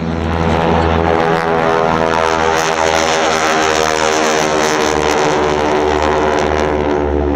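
Propeller aircraft flying past: a loud, steady drone made of many pitches, falling slowly in pitch as it goes by.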